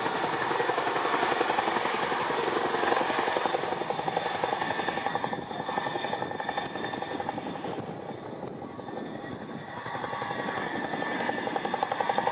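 Boeing CH-47F Chinook twin-rotor, twin-turbine helicopter flying low, its rotors beating in a fast, even rhythm over a steady high whine. The sound fades somewhat in the middle and grows louder again near the end as the helicopter comes closer.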